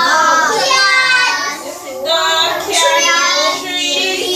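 A group of young children's voices answering together in a high-pitched, sing-song chorus, in a few phrases with short breaks between.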